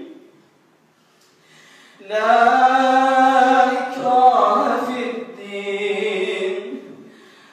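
A man's voice reciting the Quran in a slow melodic chant with long held notes, an imam leading prayer. It comes in about two seconds in after a near-silent pause and fades near the end.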